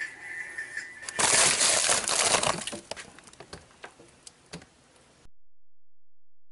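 Rustling, crinkling and knocking of frozen fish packages wrapped in freezer paper as they are handled. A burst of loud crinkling comes about a second in, followed by scattered sharp clicks and knocks, after a faint steady high tone in the first second. The sound cuts off abruptly about two-thirds of the way through.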